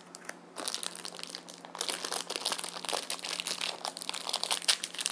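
Crinkly packaging being opened by hand, a dense run of crackles starting about half a second in.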